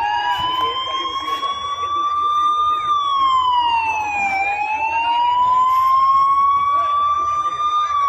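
Fire engine siren wailing: a single tone slowly climbs in pitch for about three seconds, drops back over a second or so, then climbs again and starts to fall near the end.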